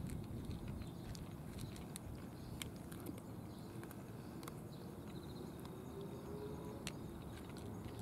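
A cat eating from a plastic dish: faint irregular clicks of chewing and of the food against the dish, a few every couple of seconds, over a low steady rumble.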